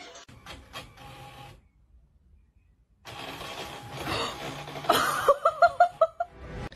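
A desktop inkjet printer running, with a steady mechanical whirr, after about a second of near silence. Near the end comes a quick run of short pitched chirps.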